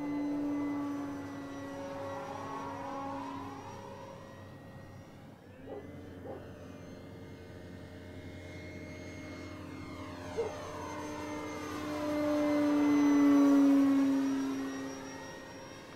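Electric motor and propeller of an FMS PA-18 Super Cub 1700 mm RC plane on 4S power, flying overhead: a steady whine that fades and returns, growing loudest on a close pass near the end and dropping a little in pitch as the plane goes by.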